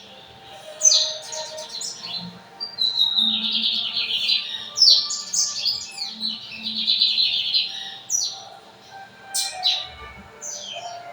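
Lined seedeater (bigodinho) singing: fast, buzzy trilled phrases in several bursts, the longest about two seconds, then a few short sharp notes near the end.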